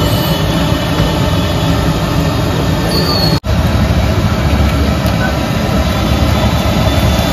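Masala-coated fish pieces deep-frying in hot oil in a large iron kadai over a gas burner: a steady sizzle with a low rumble underneath. The sound cuts out for an instant about three and a half seconds in.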